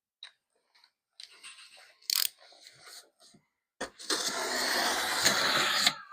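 Opening a cardboard shipping box: scattered clicks and knocks, a sharp crack about two seconds in, then a loud rasping noise for about two seconds near the end.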